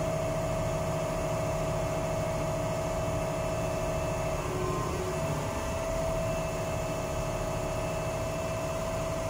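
Steady drone of a ship's engine-room machinery: a constant low rumble with one held humming tone over it.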